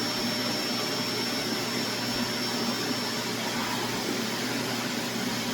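Vacuum cleaner running steadily: a continuous even rushing noise with a thin, steady high whine.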